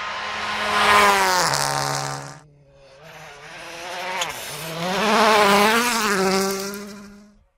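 Rally car engines under hard throttle passing at speed. The first car builds up and drops in pitch about one and a half seconds in, then breaks off abruptly; a second pass builds louder, with a brief dip like a gear change and wavering revs, and cuts off near the end.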